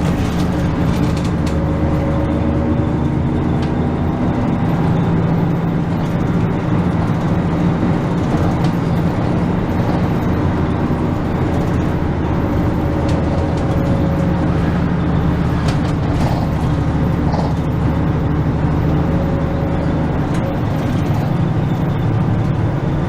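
Route bus engine and road noise heard from inside the cabin while driving: a steady low rumble whose pitch shifts slightly now and then with the engine speed.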